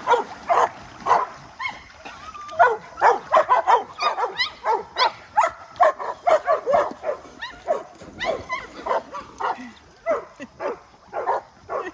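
A dog barking and yipping in many short, pitched calls in quick succession, eager for a toy held up in front of it.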